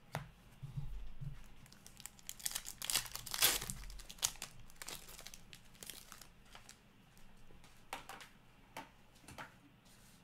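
Foil wrapper of a 2020-21 Upper Deck Metal Universe hockey card pack being torn open and crinkled in the hands. The crinkling is loudest a few seconds in, then thins out to scattered rustles and clicks.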